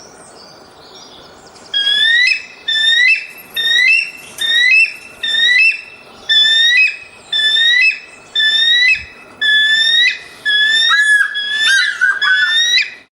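An eagle calling: a series of about ten loud, high, rising whistled cries, roughly one a second, over a faint background hiss, breaking into quicker, broken notes near the end.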